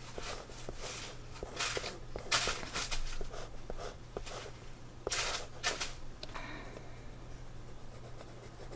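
Pilot Color Eno 0.7 mm colored pencil lead scratching across sketch-pad paper in short swatching strokes, clustered about one and a half to three seconds in and again around five seconds, with a few light clicks.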